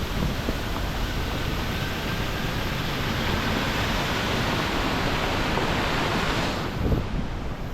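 Steady rushing noise of Diyaluma Falls running full after rain, with wind buffeting the microphone. The hiss grows brighter midway, then falls away abruptly near the end with a short thump.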